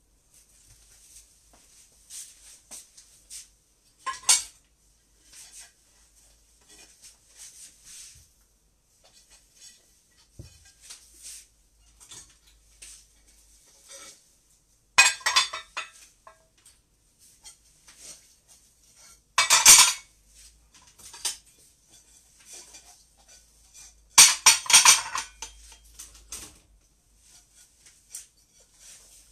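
Dinner plates clinking and clattering as they are set down and stacked, with light clinks throughout and louder clatters about 4, 15, 20 and 25 seconds in.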